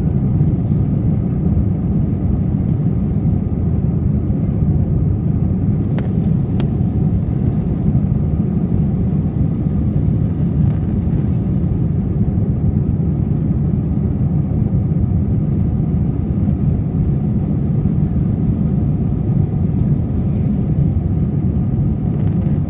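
Steady low roar of an Airbus A320's jet engines and rushing air heard inside the passenger cabin during the climb after takeoff. Two brief clicks about six seconds in.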